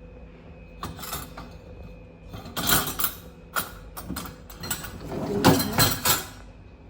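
Loaded dishwasher racks and dishes being handled: an irregular run of clicks, rattles and scrapes of plastic and metal, with louder clatters about halfway through and near the end.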